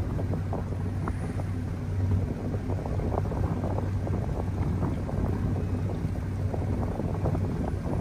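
Steady low hum of the boat's idling engines under strong wind buffeting the microphone.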